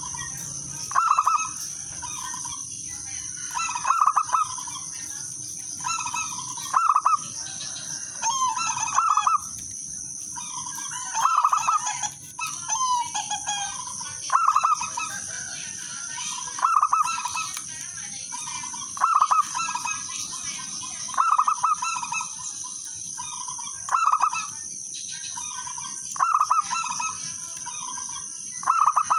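Zebra dove (perkutut) cooing: a short phrase of quick, rhythmic notes, repeated about every two and a half seconds, over a steady high-pitched drone.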